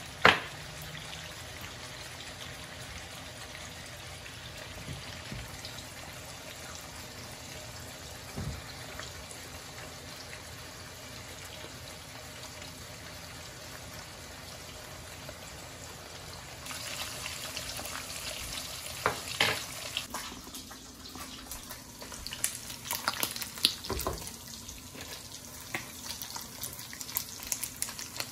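Leftover meats frying in bacon grease in a cast iron skillet: a steady sizzle, with one sharp click right at the start. About two-thirds through, the sizzle grows louder and short knocks and scrapes come in as a fork turns the meat in the pan.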